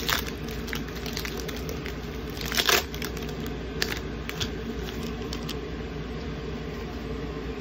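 Foil Pokémon booster-pack wrapper crinkling and cards rustling as a pack is opened by hand, with a few sharp crinkles in the first four seconds, the loudest about two and a half seconds in. A steady low hum runs underneath.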